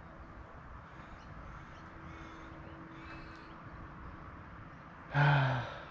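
Quiet outdoor background with faint bird chirps and a steady hum, then about five seconds in a man lets out a short, loud sigh.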